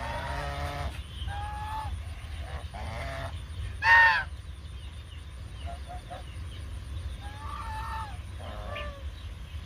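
Domestic geese honking in a pen, one call after another every second or so, the loudest about four seconds in.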